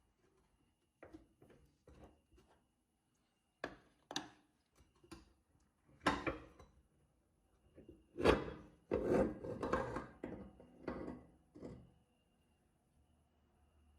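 Irregular scraping and rubbing strokes of objects being handled, sparse at first, then louder and closer together in the second half, and stopping about two seconds before the end.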